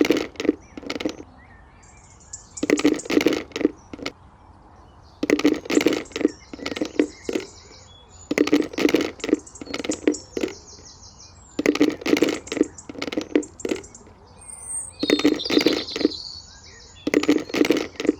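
Groups of rapid sharp knocks or taps, each group about a second long and repeating every few seconds, over a faint high buzz.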